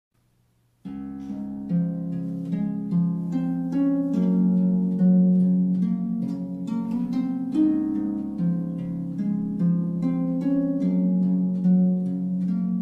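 Background instrumental music of plucked notes in a gentle melody, starting about a second in.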